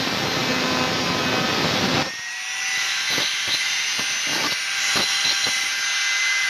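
Electric angle grinder cutting through a steel coil spring from a brake vacuum servo, shortening it by about a quarter. About two seconds in the cut stops and the grinder runs free with a steady high whine, with several light knocks.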